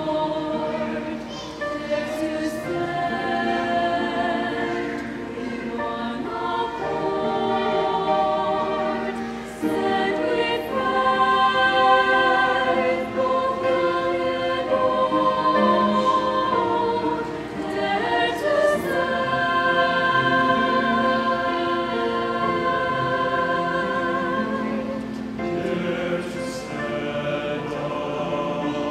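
Mixed choir of women's and men's voices singing a sacred song in several parts, with sustained, shifting chords and a brief break about a third of the way in.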